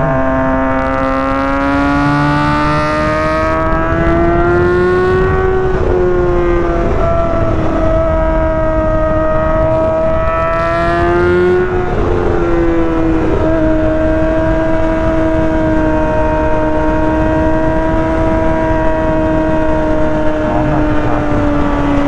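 2023 Kawasaki ZX-6R's 636 cc inline-four engine running under way. Its pitch climbs slowly, drops briefly twice, about six and twelve seconds in, then holds steady and sinks slowly toward the end.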